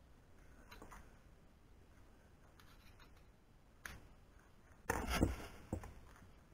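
Handling noise while working on a CNC frame: faint rubbing and small clicks, a sharp click about four seconds in, and a louder brushing rustle with a couple of knocks about five seconds in.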